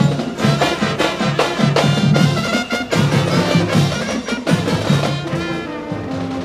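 Marching band playing: trumpets and other brass over a steady snare-drum beat.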